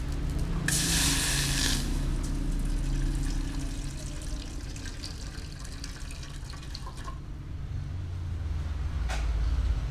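Water poured from a stainless-steel kettle into a metal cooking pot, a splashing stream loudest about a second in that fades and stops about seven seconds in. A low rumble swells near the end.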